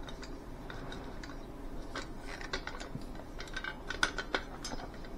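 Rhino USA folding survival shovel being handled: light clicks, clinks and knocks from the blade and locking collar as the parts are turned and shifted. Two sharper clicks come about four seconds in.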